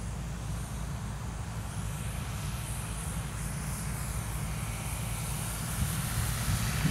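An electric RC model airplane's E-flite 40-size motor and 13x10 propeller whirring faintly at low throttle on landing approach, a high whine that rises and falls in pitch as the plane passes. A steady low rumble lies under it.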